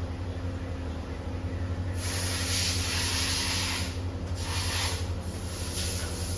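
Hissing spray in three bursts, the first about two seconds in and lasting about two seconds, over a steady low hum.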